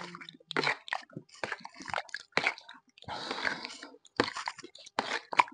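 A person eating gelatin with their mouth at the bowl: wet chewing and slurping, a quick string of short mouth sounds with one longer slurp about three seconds in.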